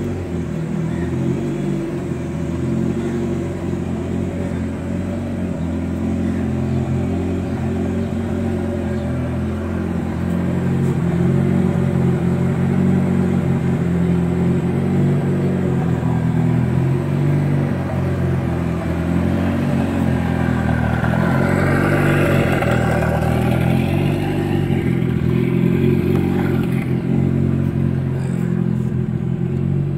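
Mitsubishi Lancer Evolution VI Tommi Mäkinen Edition's turbocharged 2.0-litre 4G63 inline-four running steadily. A brighter hiss rises and then fades about two-thirds of the way through.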